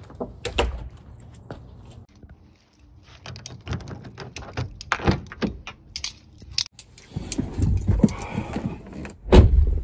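Someone getting into a car: clicks and rattles as the driver's door is opened and he climbs into the seat, then a heavy thunk near the end as the door is pulled shut.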